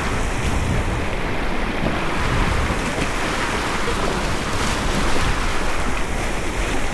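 River water rushing steadily past a raft, with wind buffeting the microphone.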